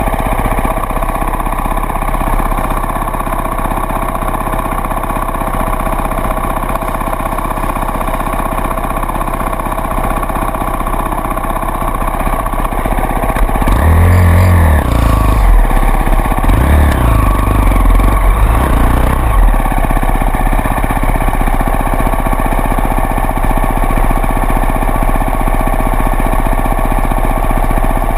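Off-road vehicle engine running steadily under way, then from about halfway through getting louder and revving up and down several times.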